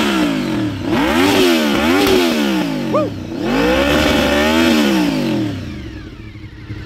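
A 1995 Honda VFR750F's V4 engine with a Staintune exhaust, revved while standing: a few quick blips of the throttle, then one longer rev that falls back toward idle near the end.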